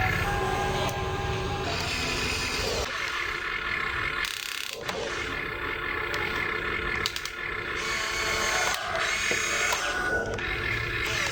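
Small electric gear motors of a toy RC construction vehicle whirring as it works. The motors hum steadily for about the first three seconds, then give way to shifting mechanical whirring with scattered clicks.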